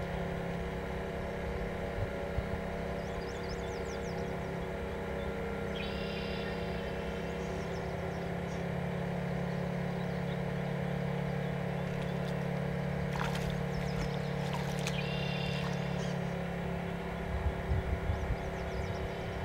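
Steady hum of a radio-controlled model container ship's drive motor running under way, several steady tones held evenly, stopping about seventeen seconds in.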